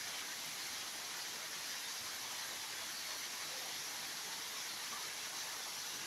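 A steady, even hiss, strongest in the high range, with no distinct sounds standing out.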